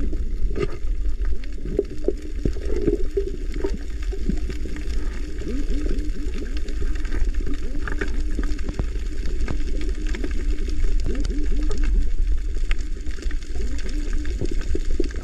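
Underwater sound heard through a diving camera's housing: a steady low rumble with many small bubbling, gurgling blips and an occasional click.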